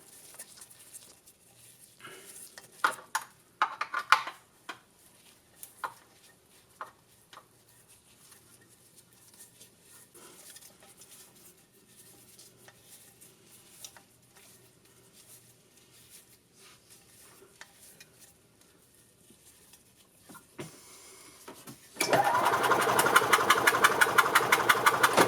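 Quiet clicks and knocks of handling at first. Near the end, the 1997 E-Z-GO TXT gas engine starts being cranked over by the starter with the plugs out: a loud, fast, even chugging that starts abruptly.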